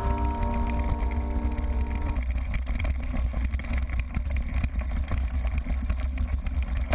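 Background music for about two seconds, then the raw sound of a mountain bike going down a rough grass track, picked up by a GoPro mounted on the bike: a steady low rumble of wind and tyre noise with many small rattling knocks as the bike bounces over bumps.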